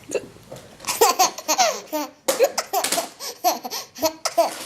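Baby laughing: starting about a second in, a quick string of short laughs, many of them falling in pitch.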